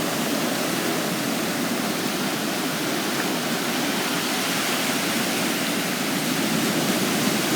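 Rough surf breaking on a sandy beach: a steady, unbroken rush of waves.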